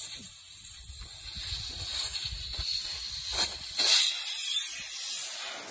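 Air hissing out of a lawnmower tire's valve stem as the valve core is unscrewed with a core removal tool: low fumbling at first, then a short hiss about three seconds in and a louder rush of escaping air that fades near the end.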